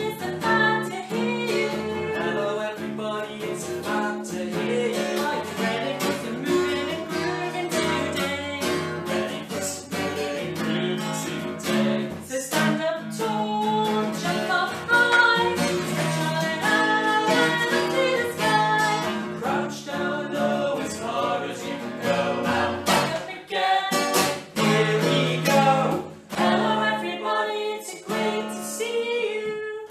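Acoustic guitar strummed steadily, accompanying a woman and a man singing a lively children's action song.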